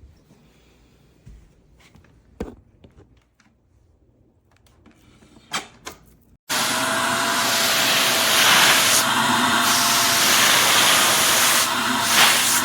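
A few light clicks and knocks, then about six and a half seconds in a Shark Navigator Lift-Away upright vacuum switches on suddenly and runs with a loud steady rush and a thin whine. The rush swells and eases a few times as it runs.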